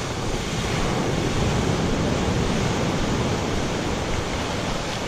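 Ocean surf breaking and washing up the sand, a steady rushing noise.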